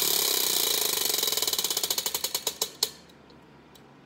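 Prize wheel spinning, its flapper ticking against the rim pegs: very rapid clicks at first that slow and spread out until the wheel stops about three seconds in, with one last faint click near the end.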